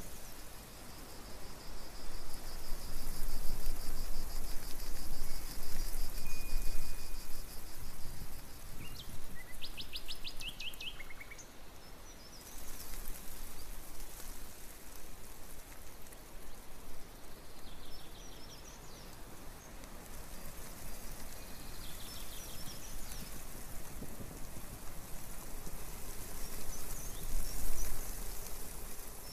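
Outdoor pond ambience: a steady rushing hiss, with a high continuous trill through the first several seconds and short, rapid bird calls about a third of the way in and twice more later.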